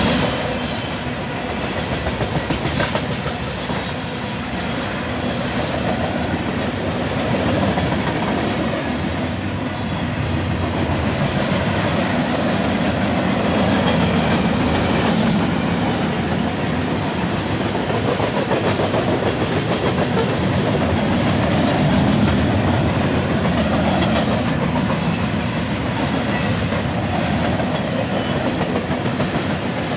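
Freight cars of a Union Pacific freight train (tank cars and covered hoppers) rolling past close by at speed: a steady rumble of steel wheels on the rails with rapid, continuous clicking.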